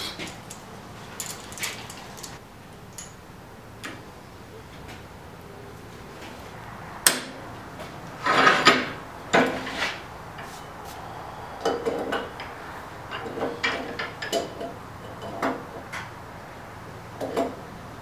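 Metal tools being handled at a bench vise: clinks, clicks and rattles as steel clamps and locking pliers are taken off and fitted onto a stacked steel billet. A burst of louder rattling comes just before halfway.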